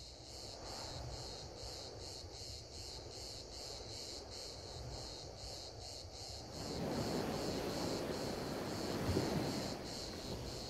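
A chorus of insects chirping in a steady, evenly pulsing high-pitched band. About six and a half seconds in, a soft rushing noise joins in and grows louder.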